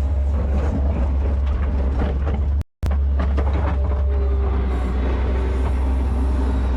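New Holland L150 skid steer engine running steadily under load, with scattered knocks and clatter from the machine and its bucket as it pushes snow. The sound cuts out for a moment a little under three seconds in.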